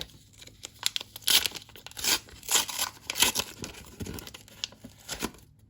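A Teamcoach trading-card pack's wrapper being torn open and crinkled by hand: an irregular run of crackling rustles, loudest in the middle.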